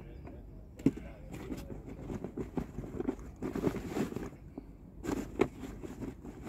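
An angler handling his tackle and bait containers close by: irregular small knocks, scrapes and rustles, with a sharper knock about a second in and heavier rustling around four and five seconds in.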